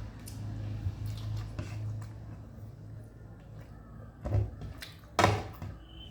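A person eating a meal with their hand: soft chewing and mouth sounds, with two short, louder sounds about four and five seconds in.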